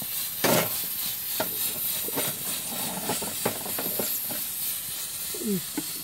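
Cast-iron hob rings of a wood-fired stove being lifted off, a sharp metal clank about half a second in, then lighter clicks and knocks, over the steady hiss of the fire and the boiling pots.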